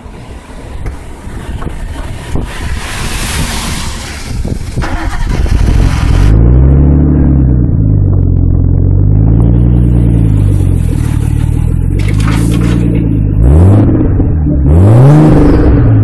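Exhaust of a Nissan Skyline HCR32's straight-six through a Kapton aftermarket muffler, heard at the tailpipe: idling, then blipped about five times from about six seconds in, the revs rising and falling each time, the last two blips quicker and sharper.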